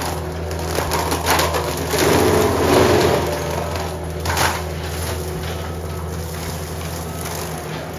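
Compact track loader clearing brush: its engine runs steadily under the cracking and crunching of branches and brush, which is loudest about two to three seconds in and again briefly a little past four seconds.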